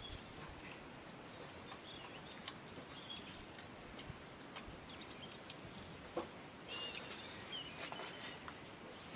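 Faint outdoor background with a few brief bird chirps and a single light knock about six seconds in.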